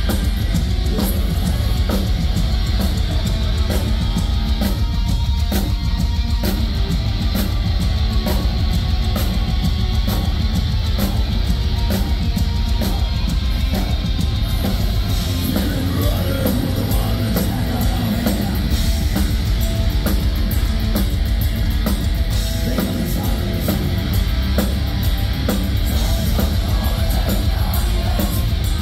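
Black metal band playing live, with distorted electric guitars, bass and fast, dense drum-kit hits at a steady loud level.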